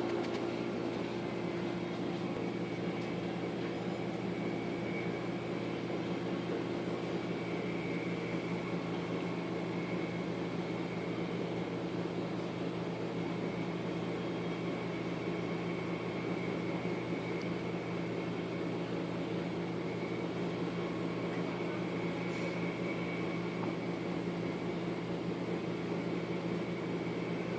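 Steady mechanical hum with a faint high whine above it, unchanging throughout.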